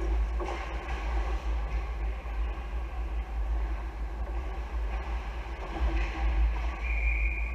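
Ice hockey rink ambience during a game: a steady low rumble under a continuous haze of noise, with a short steady high tone near the end.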